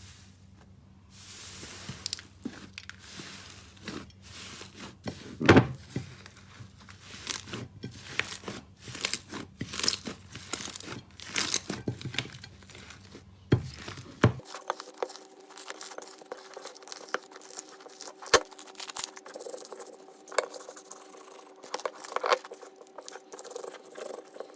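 Slime being squeezed and pressed by hand: a dense run of crackling and popping clicks. The background tone changes about two thirds of the way through, where one clip gives way to another.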